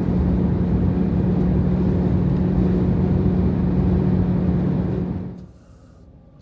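A Jeep Grand Cherokee WK2's cowl humming at highway speed: a steady, low hum over wind and road noise inside the cabin. The hum comes from the plastic cowl panel between the hood and windshield vibrating up and down against its contact points in the airflow. The sound cuts off sharply about five seconds in.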